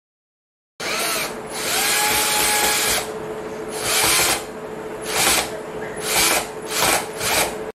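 Bosch GSB-120-Li 12 V cordless drill driver driving a screw into a wall: one run of about two seconds, then five short trigger bursts as the screw is snugged down.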